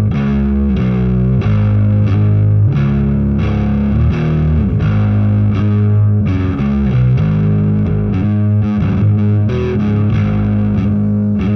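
Electric bass played through an MTI-era Ampeg SVT tube bass amp into an 8x10 cabinet, with nearly all the controls turned up: a loud, heavily distorted riff of changing notes.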